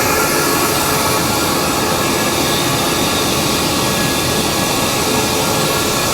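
A 250 hp two-stage screw air compressor running steadily: a constant, even machine noise with a few faint steady tones.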